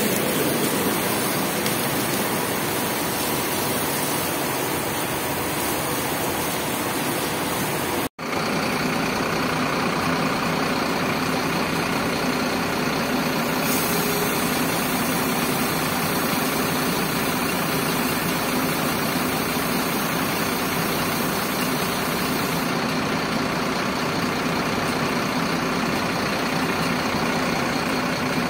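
Bus engine idling steadily, with a constant hiss over it. The sound drops out for an instant about eight seconds in, and then the idle runs on evenly.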